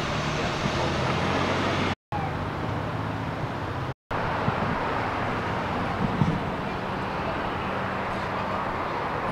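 City street traffic noise with a steady low engine hum. It drops out to silence for an instant twice, about two and four seconds in.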